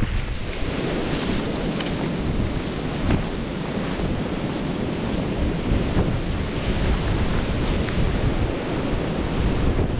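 Wind buffeting the microphone in a steady, gusty low rumble. Faint brushing and crunching come through now and then as someone walks through snow-covered bamboo grass.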